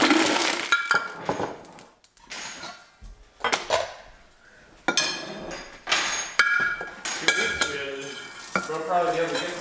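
Ice cubes poured from a glass pitcher into a large glass jar, clattering for the first second or so, then scattered clinks of ice knocking against glass.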